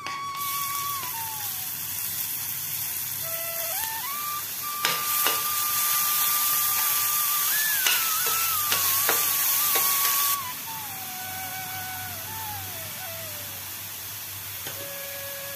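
Chopped onions sizzling in hot oil in a stainless steel frying pan, with a spoon clicking and scraping against the pan; the sizzle cuts off suddenly about ten seconds in. Soft melodic background music plays throughout.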